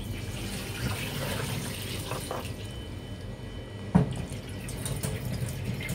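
Cold water pouring off cut potato wedges through a plastic colander and splashing into a stainless steel sink as they drain. One sharp knock about four seconds in.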